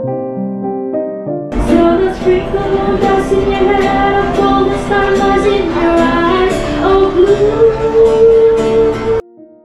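Soft piano background music, then a sudden cut about one and a half seconds in to a woman singing into a microphone with a live acoustic guitar, ending on a long held note before it cuts off abruptly.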